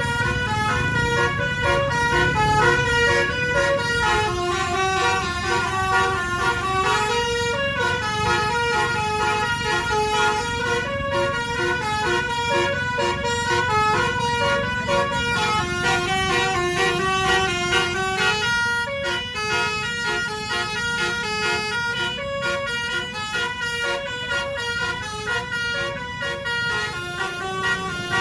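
Bus telolet basuri horn playing a long melody of quick stepped notes without a break, over the low rumble of the bus and road.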